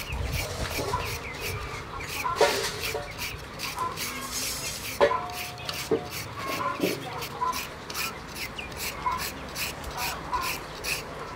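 A julienne peeler's metal teeth scraping down a raw carrot in quick, repeated strokes, shredding it into strips.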